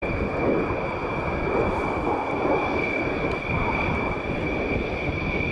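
Jet noise from a formation of BAE Hawk T1 jets flying past: a steady rushing rumble with a high whine that holds one pitch.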